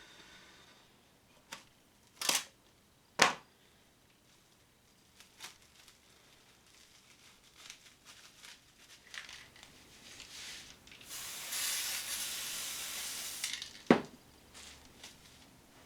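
Handling noises from hands-on DIY work: a few sharp knocks and clicks of material being set down or handled, and a steady hissing rustle lasting about two and a half seconds near the end.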